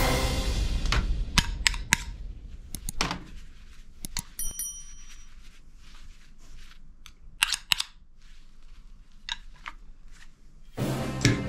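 Plastic toy guns and toy knives clacking and clicking against one another as they are handled and shifted in a cardboard box. Sharp knocks come in scattered clusters, the sharpest about a second and a half in and again past the middle.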